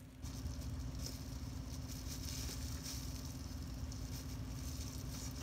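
Bubble wrap crinkling and rustling under gloved hands pressing it around a tumbler: a continuous fine crackle at an even level.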